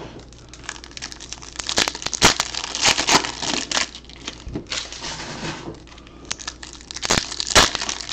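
Foil 2018 Topps Chrome baseball card packs crinkling and tearing as they are ripped open by hand, in irregular crackly bursts with sharp clicks.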